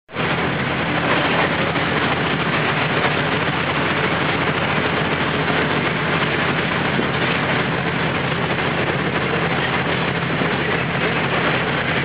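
A boat engine running steadily with a constant low hum, under an even rushing noise of wind and sea.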